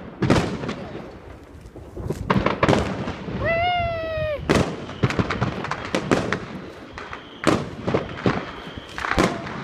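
Fireworks and firecrackers going off all around: a fast, irregular run of sharp bangs and crackles.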